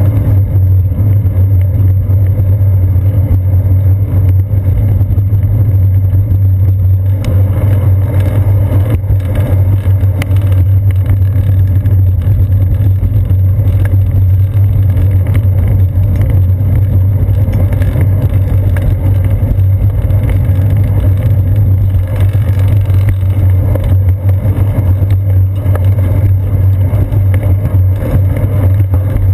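Steady loud low rumble of riding noise, wind and road vibration, picked up by a seat-post-mounted GoPro Hero 2 in its housing as a bicycle rolls along a paved trail. It grows a little rougher about seven seconds in.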